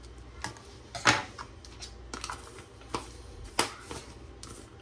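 Safety seal being picked and peeled off the mouth of a new plastic spice shaker bottle: scattered crackles and sharp clicks, the loudest about a second in.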